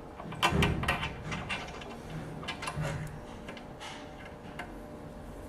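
Light metal clicks and knocks as a cutter is handled and fitted into a key-duplicating machine, most of them in the first second and a half and a few more later.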